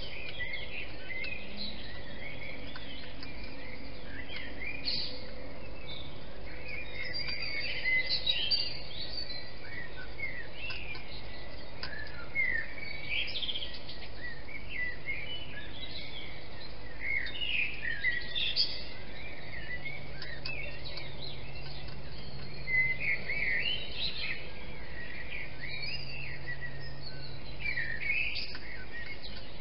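Several birds singing and chirping in the pre-dawn chorus: many short, overlapping high calls that rise and fall, over a steady background hiss.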